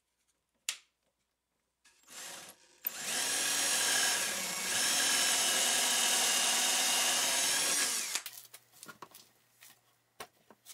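Ryobi cordless drill boring a pocket hole through a pocket-hole jig into a wooden board. It runs steadily for about five seconds, dips in pitch for a moment after the first second, and stops. Light knocks follow as the drill is handled and set down.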